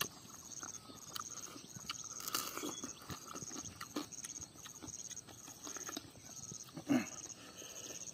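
A person eating crab curry and rice close to the microphone: chewing and biting, with wet mouth clicks and smacks scattered throughout. There is one louder mouth sound about seven seconds in.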